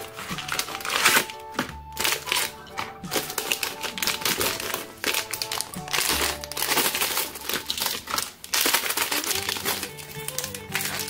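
Crinkling and rustling of Cadbury Gems packaging: a small cardboard box handled and opened and plastic wrapper packets crinkling as they are pulled out and opened, over background music.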